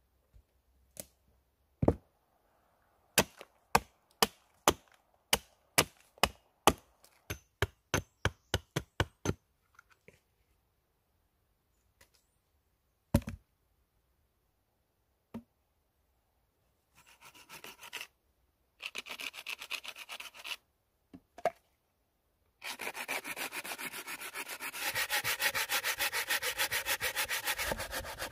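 Hatchet chopping into a log on a stump: a string of sharp wooden strikes about two a second, then a few single knocks. In the last third a hand saw cuts across the log in quick back-and-forth strokes, first in two short spells and then in one long steady run.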